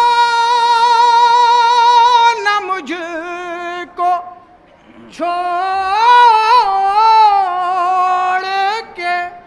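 A solo voice singing a nauha, a Shia mourning lament, unaccompanied. It holds one long, wavering note for over two seconds, breaks off about four seconds in, then sings a second ornamented phrase of drawn-out vowels.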